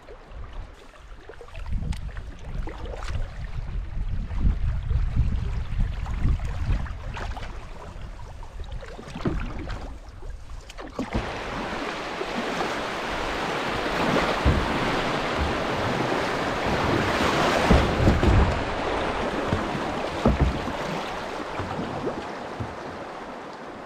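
Rushing water of a shallow river riffle as a kayak runs through it, swelling up about halfway through and easing off near the end. In the first half there is a low wind rumble on the microphone and the splash of paddle strokes.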